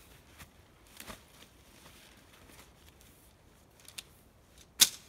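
Alps Mountaineering one-person tent being pulled out of its stuff sack and handled: faint rustling of tent fabric with a few light clicks, and one sharp snap near the end.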